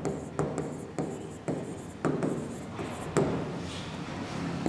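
Stylus writing on the screen of an interactive whiteboard: a run of sharp, irregular taps, about two a second, with faint scratching strokes between them.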